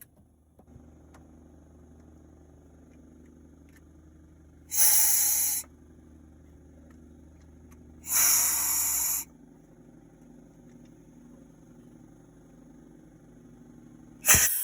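Two short bursts of spray-like hissing, each about a second long and some three seconds apart, over a faint steady low hum.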